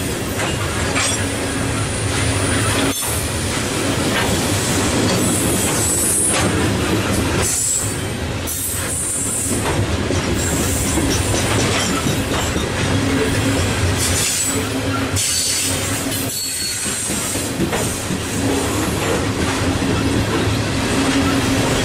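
Coal hopper cars of a long freight train rolling past at close range: a steady rumble and clatter of steel wheels on rail, with high-pitched wheel squeals coming and going several times.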